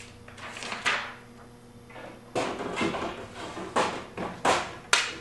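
Handling noise from an LCD panel in a sheet-metal mounting frame: about six sharp knocks and scrapes of metal and plastic as it is worked into place, the loudest near the end.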